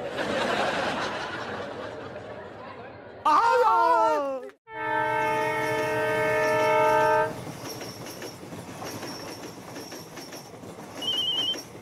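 A short loud sound sliding down in pitch, then a diesel locomotive's multi-tone horn blowing one steady blast of about two and a half seconds, followed by the train running along the rails.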